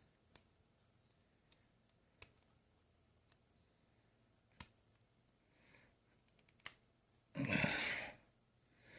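A handful of sharp, isolated clicks from small metal lock parts being worked by hand while the retaining clips of a Medeco X4 lock are pried at. Near the end comes a short, louder burst of noise.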